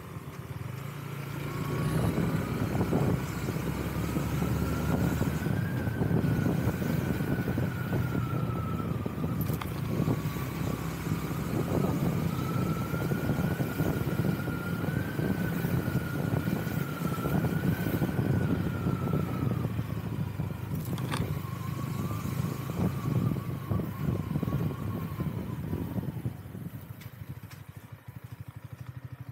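A motor vehicle running: a steady low rumble with a faint whine that slowly rises and falls with speed, easing off and quietening near the end.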